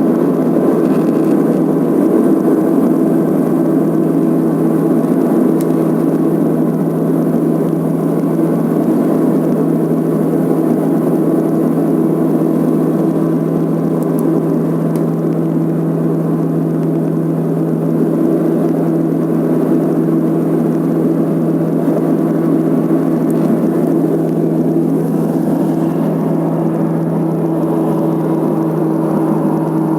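Let L-410 twin turboprop engines and propellers running at a steady setting: a constant drone with a strong low hum that does not change.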